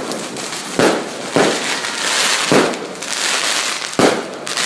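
Firecrackers and fireworks going off: a dense, continuous crackling with four sharp bangs, one about a second in, one soon after, one midway and one near the end.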